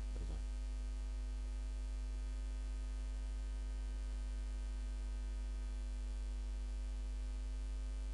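Steady electrical mains hum on the recording: a deep low hum with a thin row of steady overtones above it. A brief scrap of voice comes right at the start.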